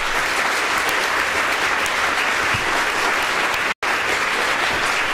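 Audience applauding steadily at the close of a talk, with a momentary dropout in the sound about four seconds in.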